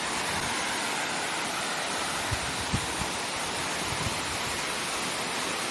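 Waterfall rushing: a steady hiss of falling water, with a few brief low thumps about halfway through.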